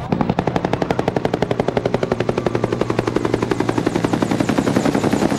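Helicopter flying low overhead, its main rotor making a rapid, even blade chop.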